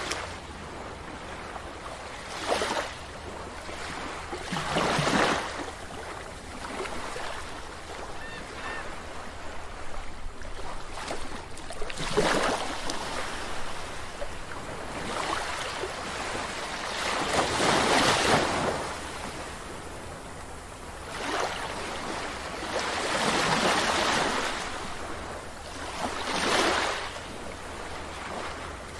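Sea waves breaking on a beach: surf washing in swells every few seconds, over a steady background rush of water.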